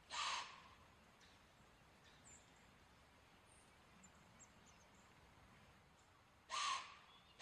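Whitetail deer blowing: two short, loud, breathy alarm snorts about six seconds apart, the sound a deer makes when it has sensed a threat.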